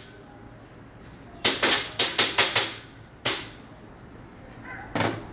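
Hammer striking the top corner joint of a slotted-angle steel rack, metal on metal: a quick run of about six sharp strikes, one more strike, and a last one near the end.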